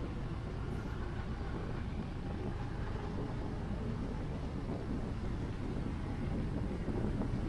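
Steady low rumble of a vehicle in motion or passing road traffic, even throughout, with no distinct events.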